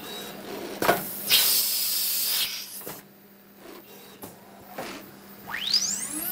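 Kimla CNC router starting its program with knocks and clunks from the head, then a hiss of compressed air lasting about a second, as in an automatic tool change. Near the end the spindle starts spinning up with a rising whine.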